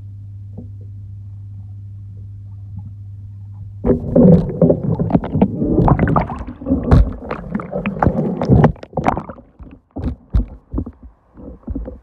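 Steady low hum heard underwater, from the pool's pump drawing through the vacuum hose. About four seconds in it gives way to loud churning and bubbling as the camera is swept through the water, then tails off into scattered knocks and splashes.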